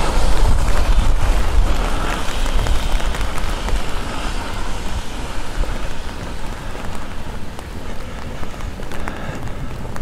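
Outdoor street noise: a vehicle's low rumble passing and fading over the first few seconds, then a steady hiss of traffic and air.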